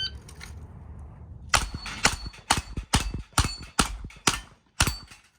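A shot timer beeps once. About a second and a half later, a Smith & Wesson 929 9mm revolver fires eight quick shots, roughly two a second, and several shots are followed by a brief metallic ring.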